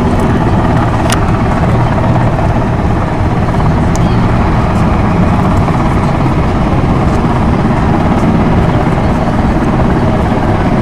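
Steady drone of a Lockheed P-3C Orion's four turboprop engines and propellers in flight, with two short clicks about one second and four seconds in.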